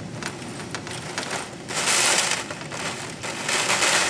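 Heavy rain and gusting wind of a severe thunderstorm under a tornado warning, surging loudly twice.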